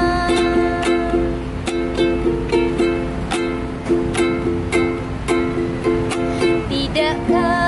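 Ukulele strummed in a steady rhythm, about three strokes a second, playing an instrumental passage between sung lines.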